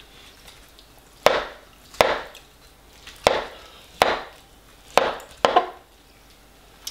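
Metal fork striking and scraping an aluminium foil pie tray while digging out pieces of pie, about six sharp clinks, each followed by a short scrape.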